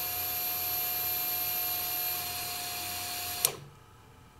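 Electric fuel pump of a fuel-injected Triumph Bonneville priming with a steady hum after the ignition is switched on. It cuts off about three and a half seconds in, the sign that the pump has built enough fuel pressure for starting.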